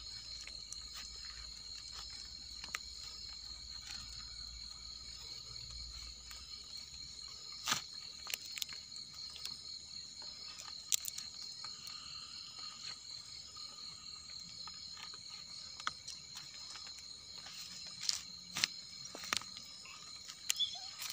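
Night insects trilling, a steady high-pitched chorus with a fine pulsing. A few sharp clicks and knocks come through it as sticks and debris are moved by hand.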